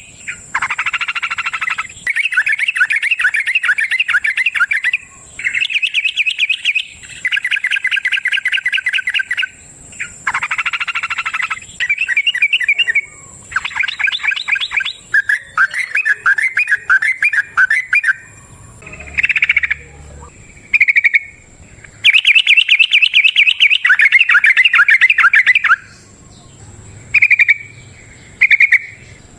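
Yellow-vented bulbul (trucukan) singing long, fast-chattering phrases of one to three seconds each, separated by short pauses, with shorter separate notes in the last third.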